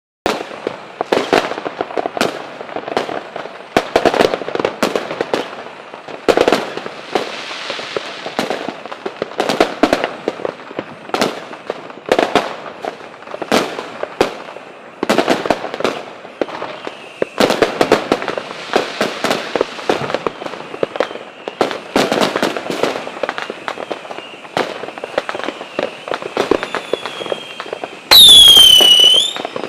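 Fireworks going off: a dense run of sharp bangs and crackles, several a second, starting suddenly. Near the end a whistling firework gives one loud whistle that falls in pitch.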